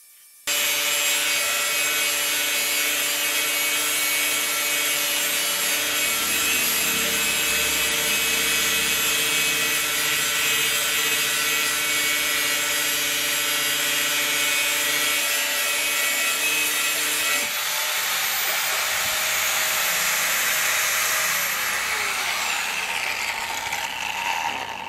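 Handheld electric angle grinder switched on about half a second in and grinding a steel knife blade, a loud grinding noise with a steady motor whine. Near the end the whine falls away as the grinder spins down and stops.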